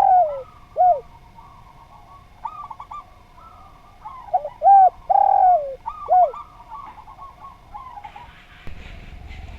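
Spotted dove cooing: two loud phrases of short, dipping coo notes, the first right at the start and the second about four to six seconds in, with fainter cooing between them. A low rumbling noise starts near the end.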